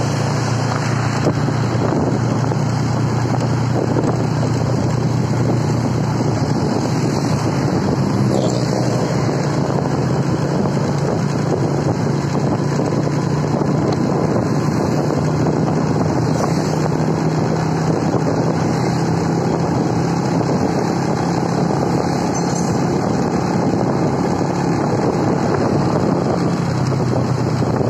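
Steady engine drone and road noise of a moving vehicle, with wind rushing over the microphone.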